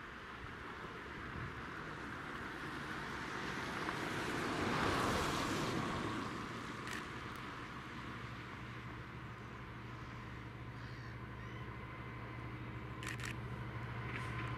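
A Class 66 diesel locomotive's two-stroke engine drones ever louder as it approaches at the head of a container freight train, a steady low hum that builds through the second half. About five seconds in, a broad rushing noise swells up and fades away.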